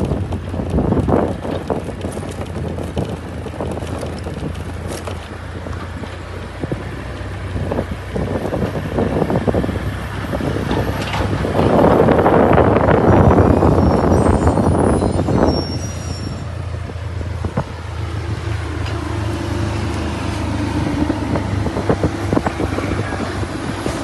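A motor vehicle's engine running steadily, with a louder rush of noise for a few seconds in the middle.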